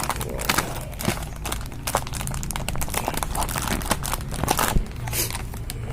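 A parcel's wrapping being torn open by hand: a dense, irregular run of crinkles, crackles and rips.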